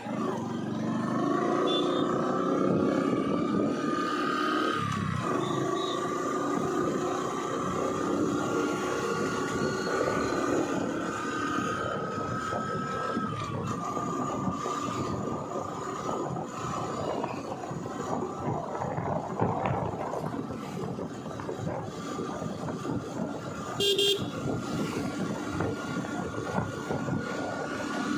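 Riding along a road: a vehicle engine and road noise run throughout, with a whine that slowly rises in pitch and dies away about halfway through. A short vehicle horn honk sounds near the end.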